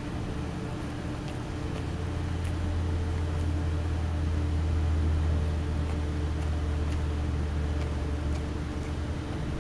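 A steady low mechanical drone, swelling a little in the middle, with a few faint crunches of a chow chow chewing kibble.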